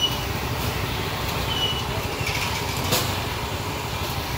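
Steady low rumble of passing street traffic, with a sharp click about three seconds in and a couple of brief high squeaks.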